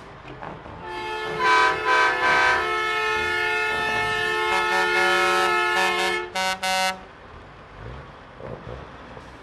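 A semi truck's multi-tone air horn sounds about a second in: one long chord of several notes lasting about five seconds, louder in a few pulses at first, then two short blasts.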